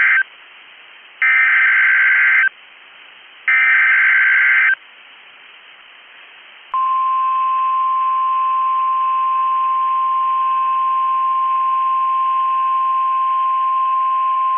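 NOAA Weather Radio alert signal. First come three bursts of Specific Area Message Encoding (SAME) header data, each about a second long with short gaps, the first already under way. About seven seconds in, the steady single-pitch 1050 Hz warning alarm tone starts and holds.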